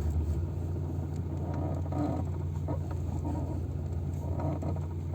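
Clutch pedal of a 16-valve VAZ-2110 squeaking, a rubbing creak heard as several short squeaks over the steady idle of the running engine. The squeak comes once the car has been driven a while, despite a new clutch, new fork and greased pedal bushings; the owner suspects the clutch cable.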